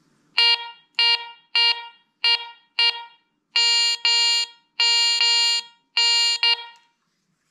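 Garrett ACE 300i metal detector giving its target tone as a gold bracelet is swept over the coil: five short beeps about half a second apart, then longer held tones.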